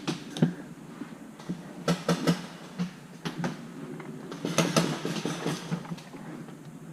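Irregular clicks, knocks and rattles, with clusters about two seconds in and again near five seconds, from a moving paintball player's gear and footsteps.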